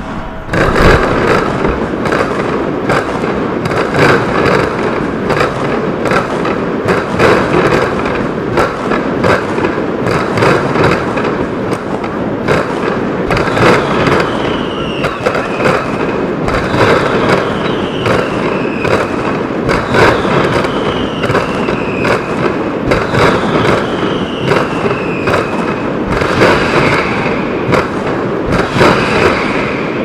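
Mascletà firecrackers exploding in a rapid, continuous barrage of sharp bangs that starts abruptly about a second in. Through the middle, about five falling whistles from whistling fireworks cut through the bangs, a few seconds apart.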